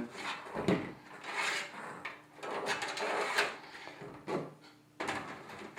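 Cables and parts being handled inside a PC case: rubbing and scraping with a few light knocks, irregular and on and off.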